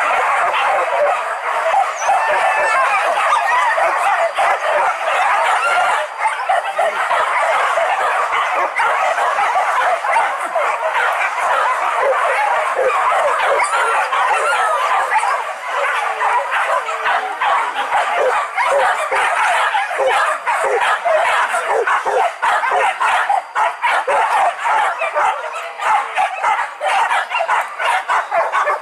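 A pack of boar-hunting dogs barking and yelping together, many voices overlapping without a break.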